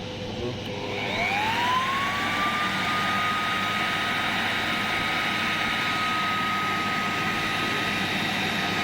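Electric handheld air blower switched up to speed 3: its motor whine rises in pitch over about a second and a half, then holds steady over the rush of air.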